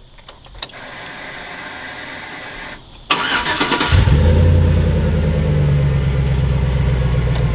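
Chevy pickup engine cranked by the starter about three seconds in, catching within a second and settling into a steady, deep idle. The exhaust runs through what is thought to be a Flowmaster 40 Series muffler, with the stock cam still in.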